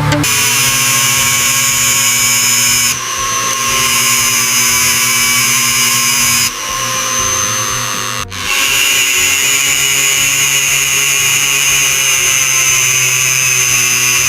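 Small power tool running steadily with a high-pitched whine over grinding noise. The pitch shifts a couple of times, and the sound breaks off for a moment about eight seconds in.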